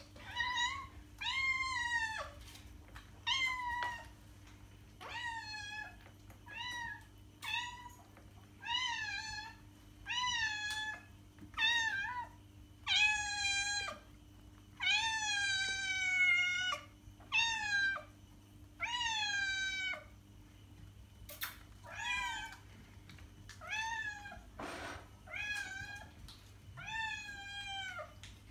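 Domestic cat meowing over and over, begging for treats: about one meow a second, some short and some drawn out, each dropping in pitch at the end.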